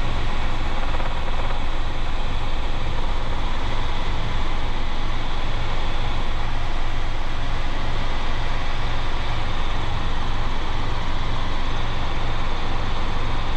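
Robinson R22 helicopter's piston engine and rotor running steadily in level cruise flight, heard inside the cabin: a loud, even drone with a fast low flutter and a constant hiss.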